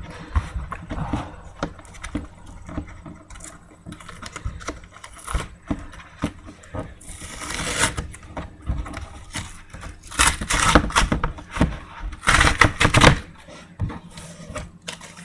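A sealed trading-card box being unwrapped and opened: plastic wrap and cardboard crinkling, tearing and scraping, with many small clicks of handling. The loudest rips come in three stretches, about halfway through, at about ten seconds and at about twelve seconds.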